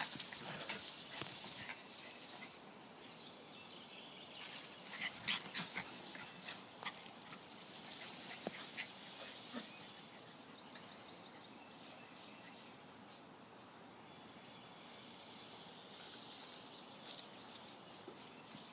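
Small puppies giving a few faint, short, high yips and squeaks while playing. They are clustered and loudest about five seconds in, over a quiet outdoor background.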